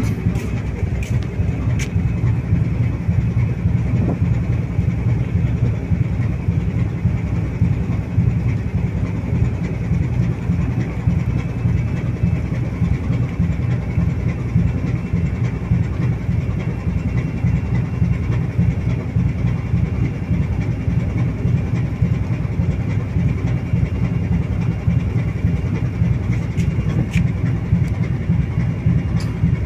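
A cargo ship's diesel engine running steadily under way: a deep, even, fast throb.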